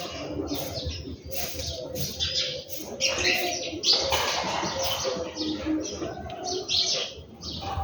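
Many birds chirping at once in a dense, continuous chatter, with low cooing notes underneath.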